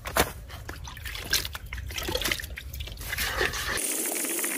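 Water trickling and dripping into dry fishing bait powder as the bait is mixed, with small clicks and rustles of handling. About three seconds in it turns to a steadier pouring hiss.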